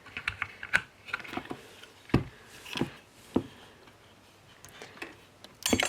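Scattered light clicks and knocks from handling a soap shaver and its metal blade as the old blade is taken out, with a louder knock about two seconds in.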